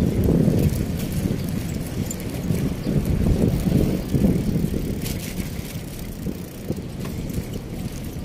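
Wind buffeting the microphone and tyre rumble of a bicycle rolling along asphalt: an uneven low rush that eases off in the second half, with a brief light rattle about five seconds in.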